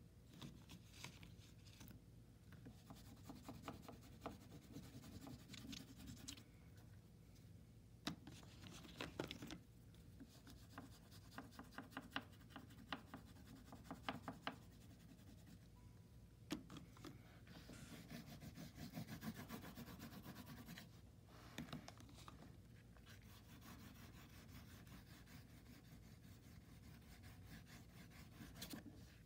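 Faint scratchy strokes of an oil pastel stick rubbed back and forth on dark paper, in runs of quick strokes with short pauses between, and a few sharper ticks.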